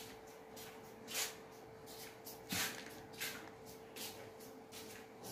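A few short, soft rustles and handling noises as chocolate chunks are pressed onto cookie dough on a baking tray, over a faint steady hum.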